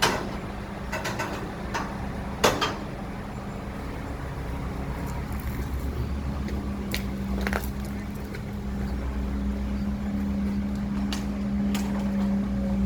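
An engine running steadily with a low hum, getting a little stronger in the second half, with a few sharp knocks or clanks over it.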